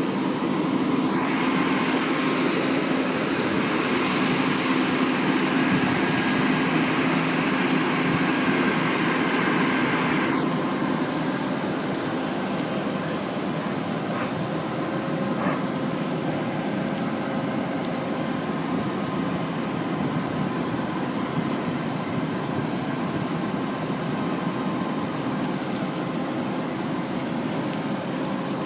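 A 4-ton packaged heat pump unit running: a steady mechanical hum with several constant tones under a whooshing rush of air. A brighter hiss rides on top for about the first ten seconds, then stops abruptly, leaving the steady running sound.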